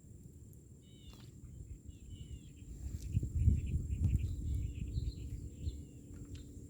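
Outdoor ambience: small birds chirping in short repeated calls, with a low rumble of noise on the microphone that swells up in the middle and dies down again. Faint steady high-pitched insect-like whine in the background.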